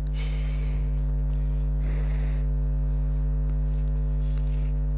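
Steady electrical mains hum, a low buzz with several evenly spaced overtones, with two brief soft hisses, one at the start and one about two seconds in.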